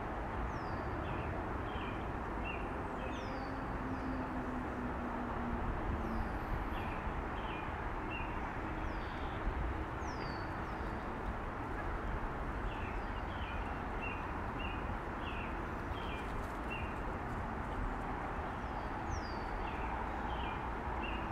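Small birds calling over a steady outdoor noise: clusters of short high chirps and quick falling whistles every few seconds.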